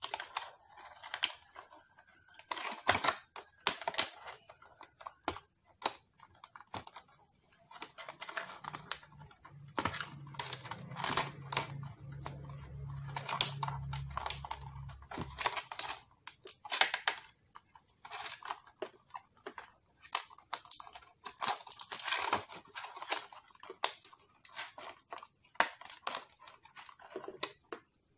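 Clear plastic blister packaging crinkling and crackling as a neckband earphone is worked out of it: irregular runs of sharp crackles and clicks.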